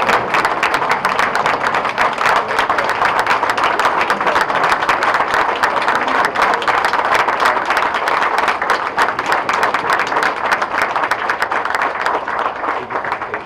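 An audience applauding steadily, a dense, continuous clapping that thins out near the end.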